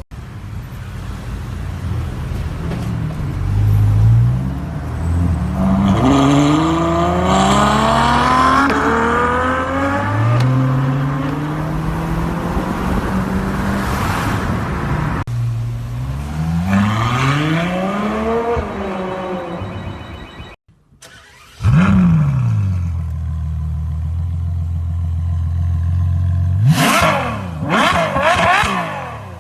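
Ferrari 812 Superfast's naturally aspirated V12 revving and accelerating, its pitch climbing several times. After a short break it blips up and falls back to a steady low idle, then revs sharply several times in quick succession near the end, with sharp pops among the revs.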